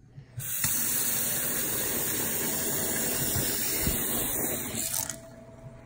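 Kitchen faucet running water into a stainless steel sink, a steady splashing rush that starts about half a second in and shuts off about five seconds in.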